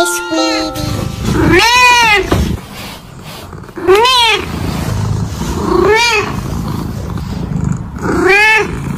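Domestic cat meowing four times, each meow rising and then falling in pitch, about two seconds apart.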